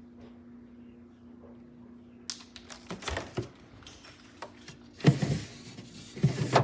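Wine refrigerator's compressor humming steadily, with a cluster of clicks and knocks about two to three seconds in and two louder thumps near the end.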